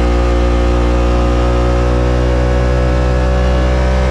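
Yamaha Wolverine RMAX 1000's parallel-twin engine at full throttle in a timed acceleration run, running on a performance tune and performance muffler. Its pitch holds steady at high revs while the CVT belt drive shifts up.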